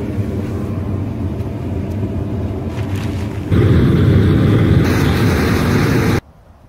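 Gas burner of a raku kiln running at firing heat, a steady loud roar that steps up louder about halfway through and cuts off suddenly near the end.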